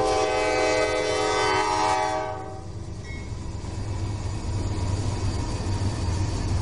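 Norfolk Southern GE Dash 9 diesel locomotive's air horn sounding a long blast at the grade crossing, cutting off about two and a half seconds in. Then the low rumble of the lead Dash 9 engines passing close, building toward the end.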